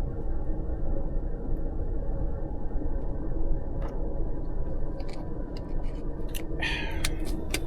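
Steady low rumble of a moving Amtrak Auto Train heard from inside a passenger car, with a few light clicks and rattles and a short rustle near the end.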